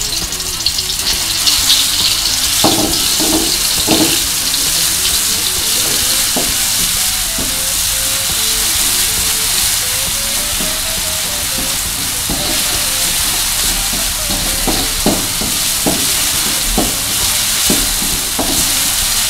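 Ground spice paste of shallot, garlic, coriander and pepper sizzling in hot oil in a wok as it is sautéed until fragrant. A spatula stirs it and knocks and scrapes against the wok at irregular moments over a steady hiss.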